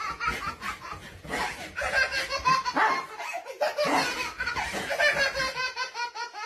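A toddler laughing in repeated bursts of giggles.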